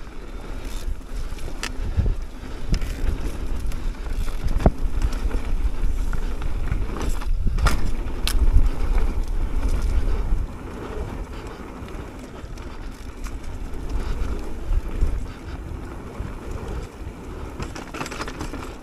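Wind noise on the microphone and mountain bike tyres rolling over a dirt singletrack at speed, with a few sharp knocks and rattles from the bike. Louder for the first half, easing off about ten seconds in.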